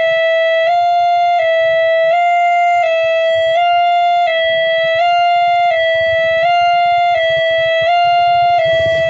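Railway level-crossing warning alarm: an electronic two-tone chime that switches between two close pitches about every three-quarters of a second, over a faint low rumble.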